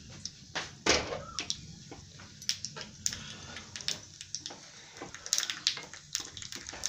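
Scattered clicks and knocks of a cooking pan and ladle being handled on a gas stovetop, with the loudest knock about a second in.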